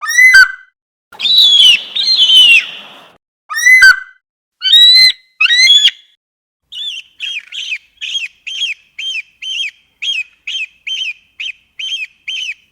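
Eagle calling: about six loud, piercing screams that slide down in pitch, then, after a short gap, a quieter run of quick, repeated chirps, about three a second.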